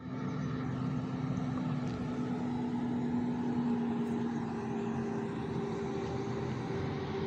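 Heavy diesel engine of a BharatBenz ten-wheel dump truck running steadily as the truck drives slowly past on a dirt haul road, its hum sinking a little in pitch.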